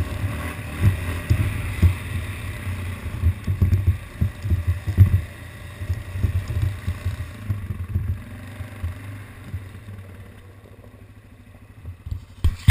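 ATV engine running at low speed while being ridden, heard as an uneven low rumble that grows quieter about ten seconds in.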